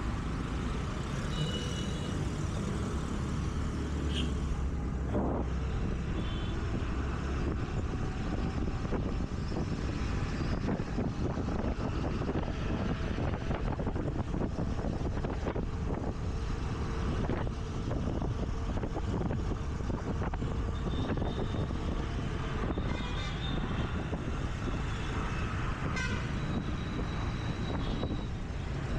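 Riding a scooter through city traffic: a steady rumble of engine, tyres and surrounding traffic, with short horn toots from vehicles several times, near the start, about six seconds in and again in the last eight seconds.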